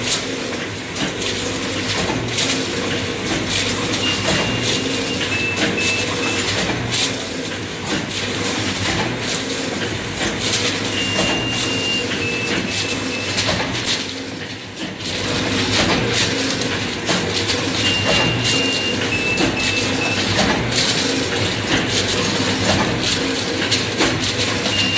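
Automatic paper plate (pattal-dona) making machine running, its press dies cycling with repeated knocks over a steady machine hum as pressed plates come out on the conveyor. Short high tones come back every several seconds.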